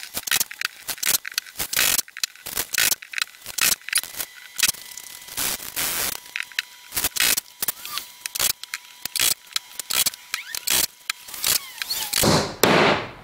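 Irregular clicks and knocks of small wooden dowels being handled and set into glued holes in the end of a laminated wooden rail on a workbench. There is a louder rubbing sound near the end.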